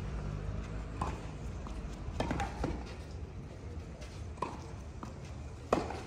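Tennis rally: the ball is struck by racquets in sharp pops a second or two apart, the loudest near the end, over a low steady background.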